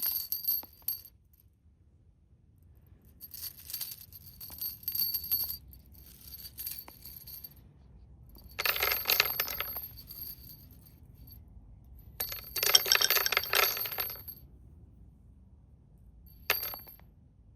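Steel construction nails dropped onto a hard surface in a series of separate spills, each a burst of metallic clinking that dies away. The two loudest spills come about 9 and 13 seconds in, and a short one comes near the end.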